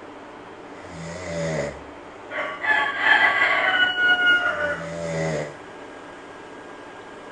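Monkey snoring, two low breaths about four seconds apart. Between them comes a louder, high-pitched drawn-out call lasting about two seconds, the loudest sound here.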